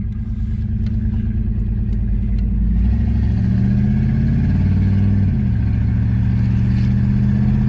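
1993 Chevrolet Caprice wagon's 305 small-block V8 with throttle-body injection pulling away: the engine note gets louder and climbs from about three seconds in, drops back suddenly a couple of seconds later, then runs steadily. It is running on a freshly installed Hypertech tuning chip and new fuel filter.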